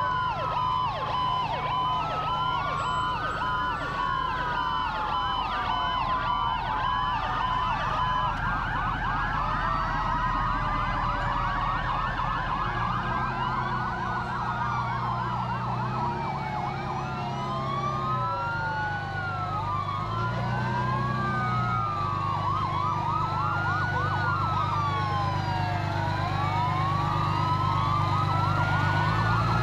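Several fire truck sirens wailing at once, their rising and falling pitches overlapping, over the low drone of the trucks' engines. A pulsing steady tone sounds through the first several seconds, and two deeper long blasts come in the middle.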